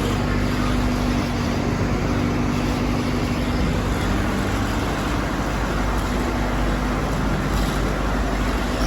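Steady engine rumble with a low, even hum and no separate knocks or impacts.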